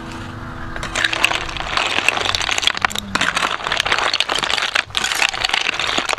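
Whole snails in their shells cooking in a hot pan with lemongrass, sizzling with a dense run of small crackles and pops that starts about a second in.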